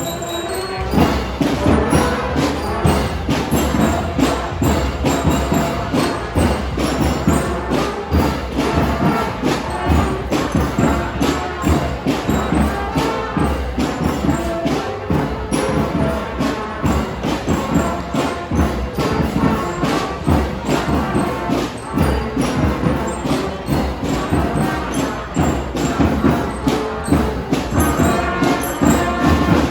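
Music with a steady, fast percussion beat running throughout.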